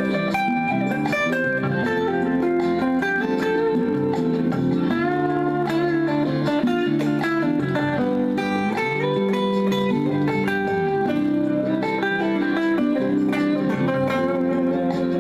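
Guitar playing a lead melody with some sliding, bent notes over a pre-recorded backing track in the key of C.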